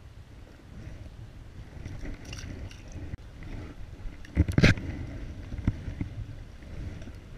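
Wind buffeting the microphone with light handling clicks, and one loud sharp knock about four and a half seconds in.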